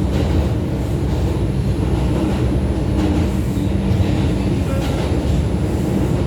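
New York City subway 2 train running, heard from inside the car: a steady, loud rumble of wheels on rail and traction motors.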